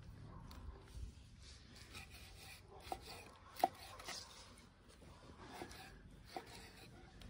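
Knife slicing raw lamb liver on a wooden tree-stump chopping block, the blade knocking on the wood now and then. The sharpest knock comes about halfway through.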